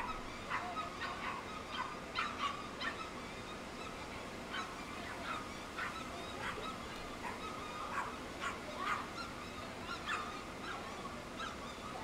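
Dogs barking and yelping in short, high calls that come irregularly, a few each second.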